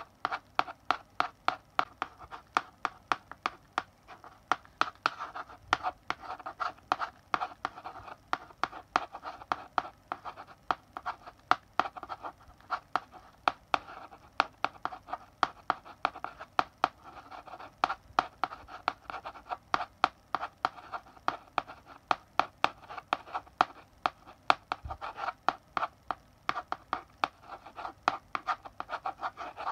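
Chalk writing on a blackboard: quick taps and short scratchy strokes, several a second, with brief pauses between bursts of writing.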